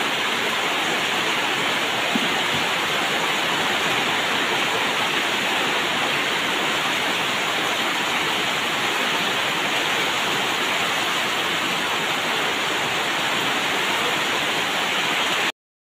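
Heavy rain falling in a steady downpour, a dense even hiss that cuts off suddenly near the end.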